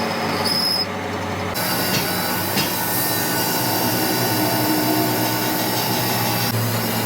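Workshop machinery running steadily with a continuous hum and whine, with a couple of light knocks about two seconds in.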